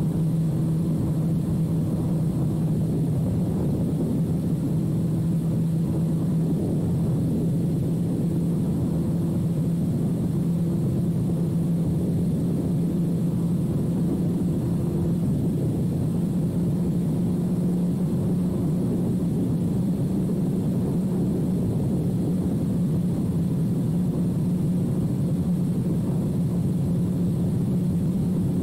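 2006 Suzuki GSX-R1000's inline-four engine through a full carbon/titanium Yoshimura exhaust, running at a steady cruise. Its drone holds an even pitch that creeps slightly higher over the stretch.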